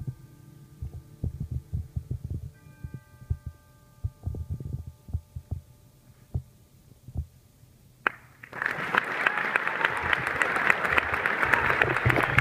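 A concert band's last faint held notes over soft, irregular low thuds, then audience applause breaks out suddenly about eight seconds in and keeps going.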